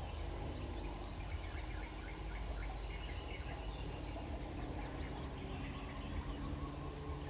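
Domestic turkey gobbling: a rapid rattling call, strongest between about one and a half and three and a half seconds in. It sits over a steady low rumble, with small birds chirping.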